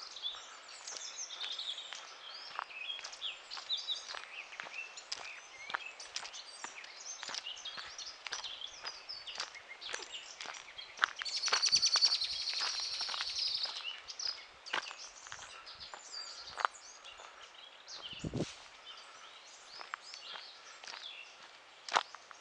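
Woodland birds singing and chirping, with a loud, rapid trill lasting about three seconds near the middle, over steady footsteps on a forest path.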